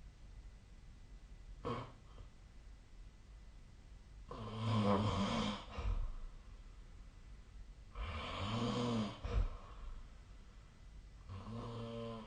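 A person snoring in their sleep: three long snores, each about a second and a half, coming roughly every three and a half seconds, with a shorter, fainter one a couple of seconds in.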